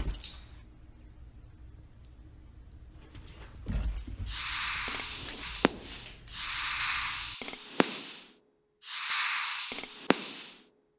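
Four hissing whooshes, each about a second long, with sharp clicks and a thin high ringing tone: the sound effects of an on-screen like-button and notification-bell animation.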